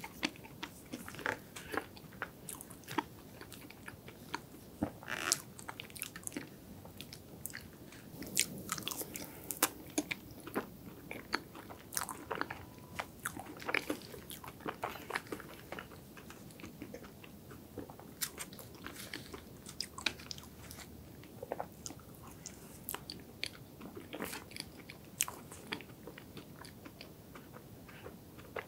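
Close-miked chewing and crunching of chocolate ice cream cake, a string of short, irregular crisp clicks with softer mouth sounds between them.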